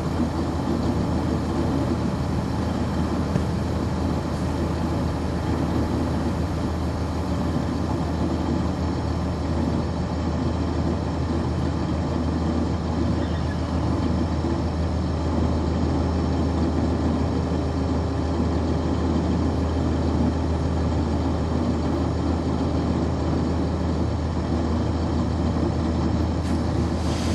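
A 1999 NovaBus RTS transit bus with a Cummins ISC inline-six diesel, heard from on board, its engine running steadily with an even low drone. A faint higher steady tone joins in about halfway through.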